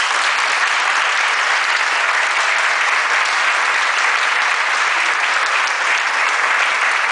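Audience applauding steadily after a percussion ensemble finishes a piece.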